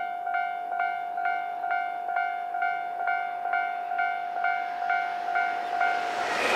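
Japanese level crossing warning bell ringing, about two strikes a second, while the barriers are down for an approaching train. Near the end, the rushing noise of a JR Hokkaido H100 diesel-electric railcar rises as it reaches the crossing.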